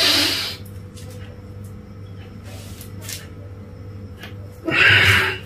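A man's loud, hissing breaths, taken in time with a yoga flow between downward dog and cobra pose: one at the start and another about five seconds in, each about half a second long. A steady low hum runs underneath.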